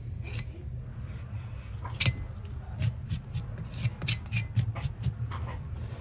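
Hand tool scraping and rubbing the sole of a horse's hoof in short, irregular strokes, about three or four a second from about two seconds in, over a steady low hum.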